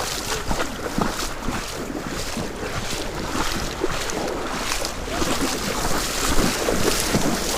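River water rushing, with irregular splashes and wind buffeting the microphone.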